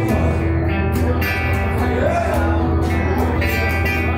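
Live gaúcho folk band playing: acoustic guitar strummed in a steady rhythm over held piano accordion notes and a bass guitar line.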